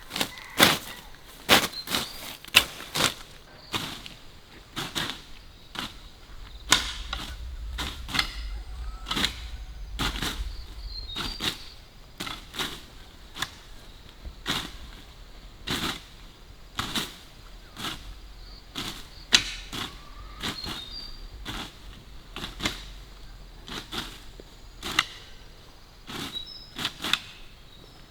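Hand tools, likely hoes, striking into stony soil, again and again at an irregular pace of about one or two blows a second. Some blows give a short metallic ring.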